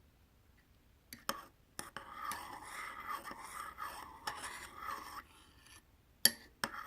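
Kitchen utensils scraping and rubbing for about three seconds, with a few sharp knocks just before and two more near the end.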